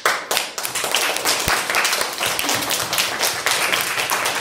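A class of children applauding: many overlapping hand claps, kept up steadily.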